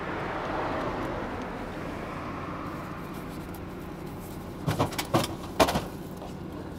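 Vending machine's delivery mechanism whirring as it moves a packaged item, then a few sharp knocks about five seconds in as the package is delivered into the pickup bin.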